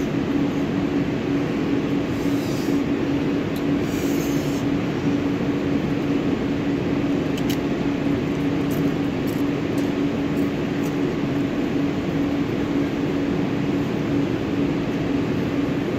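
Steady machinery hum with a constant low tone over an even rushing noise, unchanging throughout, with a few faint clicks.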